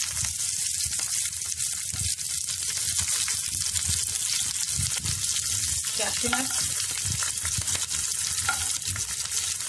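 Hot oil sizzling steadily with fine crackles in a kadai as a tadka fries: mustard seeds, urad and chana dal, curry leaves, green chilies and dry red chilies.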